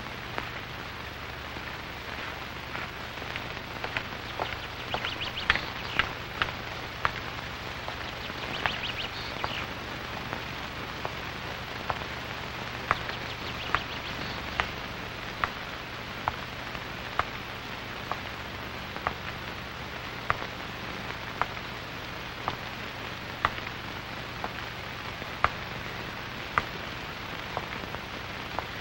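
Steady hiss with a low hum and sharp clicks about once a second: the surface noise of a worn old film soundtrack, with no dialogue or music.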